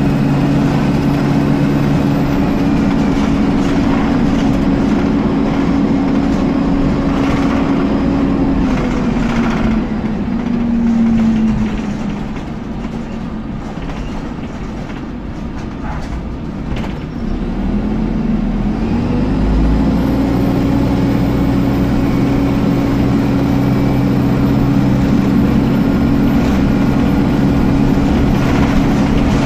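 Dennis Dart SLF bus's cooling fan whining steadily over the engine and road noise, heard from inside the saloon. About nine seconds in, the whine winds down and dies away, leaving the bus quieter for several seconds. Around eighteen seconds in, it winds back up to a steady whine.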